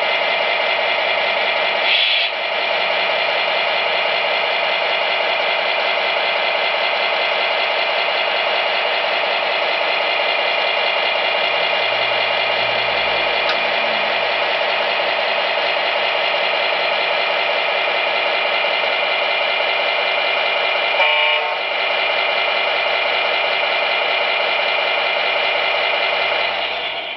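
Electronic sound module playing a MAN TGA straight-six truck engine through the model truck's small speaker, running steadily with a brief change about two seconds in and again near the end.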